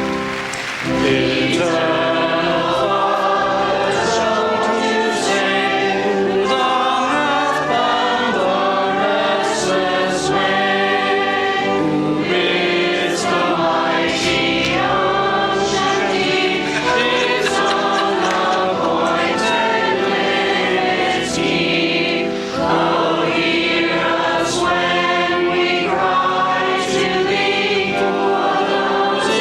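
A choir singing a hymn in held, sung notes, with the words' consonants audible.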